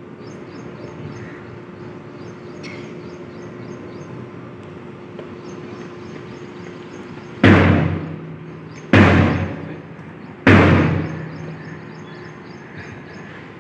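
Ceremonial rifle salute: three loud volleys about a second and a half apart, each a sharp crack that dies away in an echo over about a second.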